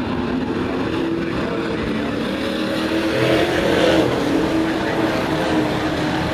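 Several race truck engines running at speed on an oval track, their overlapping engine notes shifting in pitch, growing loudest about four seconds in as the pack comes nearer.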